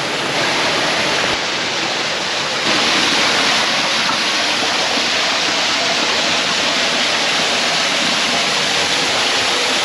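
Steady rushing of water tumbling over the waterfall cascades close by, a little louder from about three seconds in.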